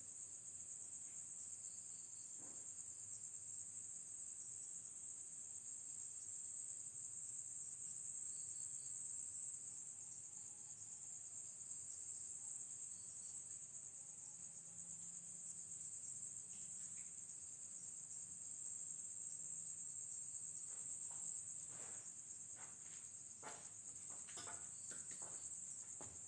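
Steady high-pitched chirring of night insects, faint and unbroken, with a run of soft clicks or taps in the last few seconds.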